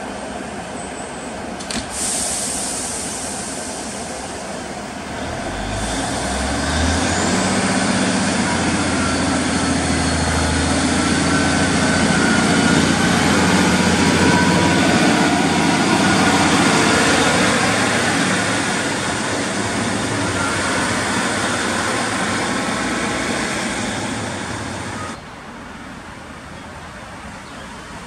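Class 153 diesel railcar idling, with a short sharp click about two seconds in. From about six seconds in its engine revs up and runs loud as the unit pulls away and passes close by. Near the end the sound drops suddenly to a quieter steady rumble.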